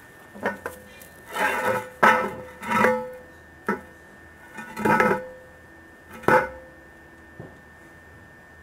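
Round metal bomb-shelter hatch lid dragged across its concrete opening and clanged shut, then a series of further metal clanks and scrapes as it is settled from below. About eight knocks, each ringing briefly, and a last faint one near the end.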